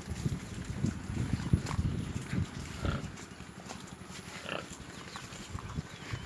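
Pigs chewing and tearing banana leaves: a dense run of low munching and crunching over the first three seconds, thinning out after, with a few brief pig calls.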